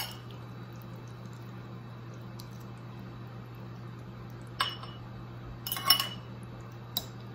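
Metal fork clinking against a glass mixing bowl and ceramic baking dishes while lifting out zucchini noodles: one clink at the start, then a few more in the second half, the loudest cluster about six seconds in. A steady low hum runs underneath.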